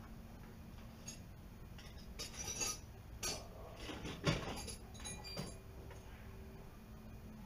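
A few scattered light clinks and knocks, the loudest about four seconds in, over a faint steady hum.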